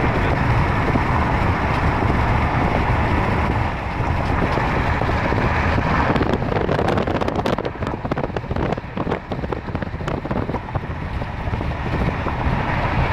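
Steady road and wind noise inside a moving car, with a low rumble. About halfway through it turns uneven and crackly for a few seconds, like wind buffeting the microphone.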